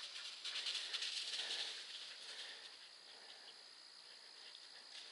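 Light, irregular footsteps and rustling in dry leaf litter on a trail, louder for the first couple of seconds, then softer.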